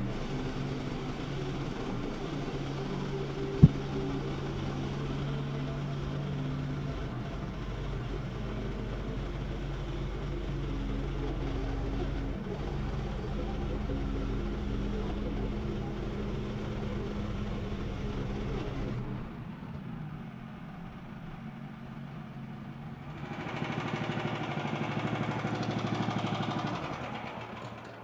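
Sawmill engine running steadily under load while milling a creosote-soaked beam. It drops quieter about two-thirds of the way through, then swells up again with more hiss near the end, with one sharp click early on.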